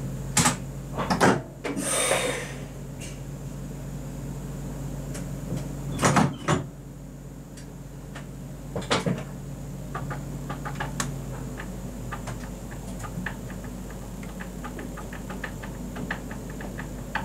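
Cab of an RBDe 560 'Domino' electric multiple unit at departure. Several knocks and thumps in the cab and a short hiss about two seconds in, over a steady low hum. From about ten seconds in, faint clicks come quicker and quicker as the train starts to move.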